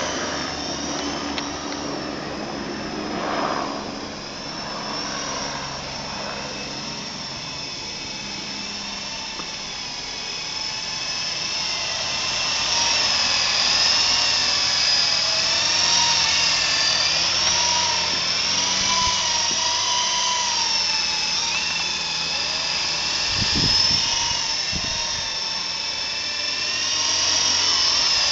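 Flying Gadgets T43 coaxial-rotor RC helicopter in flight: a high whine from its electric motors with rotor buzz. The pitch wavers up and down as the throttle changes, and it gets louder about twelve seconds in as the helicopter hovers close.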